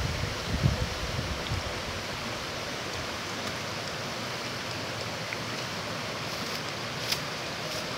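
Steady rush of a shallow rocky river flowing past, with a few soft thumps in the first second and a half.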